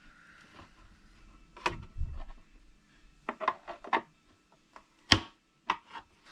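Flathead screwdriver prying a Sony DX3 speaker's cover loose: scattered scrapes and clicks, the sharpest snap about five seconds in.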